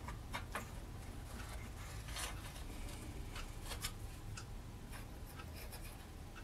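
Light, irregular clicks, taps and scrapes of small metal wire railing sections being handled and fitted onto a model boat's metal deck, over a low steady hum.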